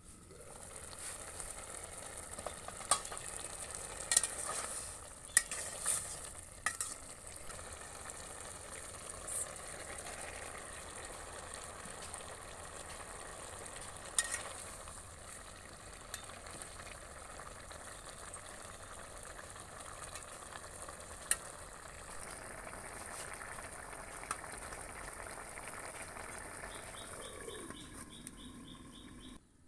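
Fish heads and Malabar spinach curry sizzling and bubbling in an aluminium pot on a clay stove, a steady hiss throughout. Sharp metal clinks a few seconds in as the aluminium lid is handled, with a few more later.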